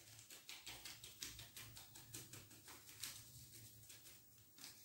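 Faint, quick, repeated ticking and rustling of a red plastic mesh sieve as powder is rubbed and tapped through it by hand, several strokes a second.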